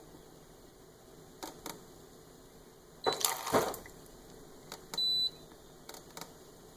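Bosch refrigerator touch control panel being pressed: light taps on the buttons and one short, high electronic beep about five seconds in. A louder brief scuffing noise comes around the middle.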